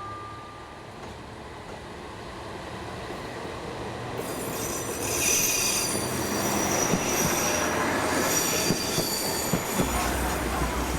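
Takachiho Railway train running on the rails, getting louder, with wheel squeal setting in about four seconds in as several steady high-pitched tones, and a few sharp knocks from the track near the end.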